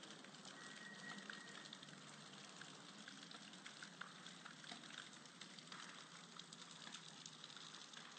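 Faint rain falling on wet ground and grass: a steady soft hiss dotted with many small drop ticks.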